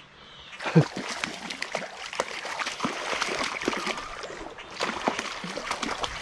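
A hooked trout thrashing and splashing in the creek as it is fought in on a spinning rod. There is a sharp splash just under a second in, then continuous splashing and sloshing water with a brief lull before the end.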